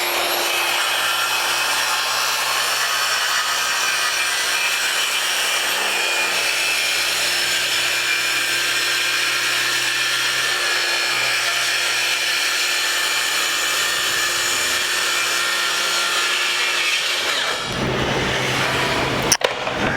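DeWalt FlexVolt 60V brushless track saw cutting a long straight line through a wood board: a steady blade noise with a constant motor whine. The sound changes near the end and stops about a second before speech resumes.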